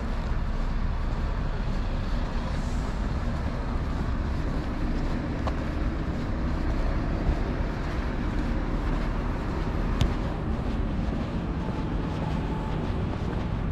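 City street ambience: a steady rumble of passing road traffic, with a short sharp click about ten seconds in.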